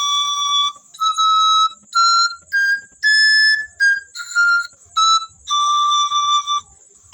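Pan flute's high treble pipes played in a run of about nine separate notes that climb step by step and then come back down, ending on a long held note.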